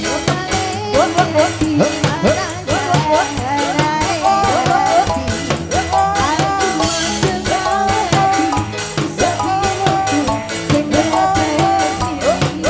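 Live campursari band music: Javanese gamelan-style ensemble with hand drums and keyboard, a wavering melody line over a steady percussive beat.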